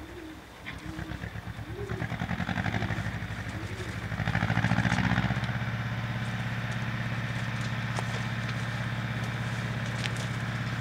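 A motor engine running steadily with an even, rapid pulse, growing louder about four seconds in and then holding a steady idle.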